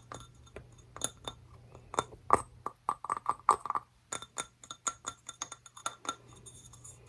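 Fingernails tapping quickly on small hand-painted pots, making a run of clinking taps; a few taps a couple of seconds in ring on briefly.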